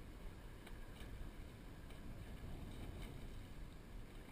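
Steady low rumble of wind and water moving around a kayak on calm sea, with a few faint ticks scattered through it.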